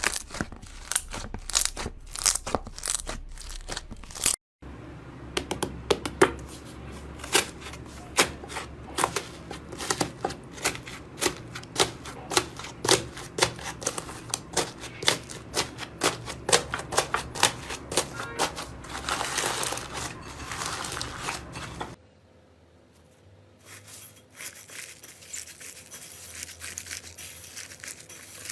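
Slime being squeezed and pressed by hand, with rapid crackling and popping clicks. After a cut near the end the crackle is quieter and finer.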